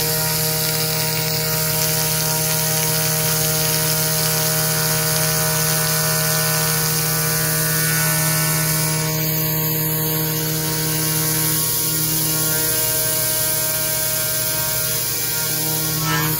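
CNC router spindle running steadily while a 3/8-inch end mill cuts the profile of a 1/8-inch 6061 aluminium plate with coolant on. A steady hum with several even tones above it and a high hiss throughout.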